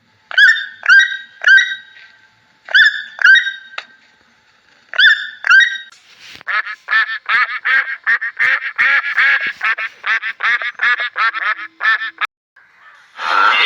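A bird honking: loud single calls in three groups of two or three, then from about six seconds a fast run of honks, about three a second, that stops shortly before the end.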